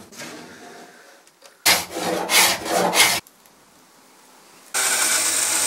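Rubbing and scraping on a wooden surface for about a second and a half, then, after a quiet gap, a steady hiss that starts near the end.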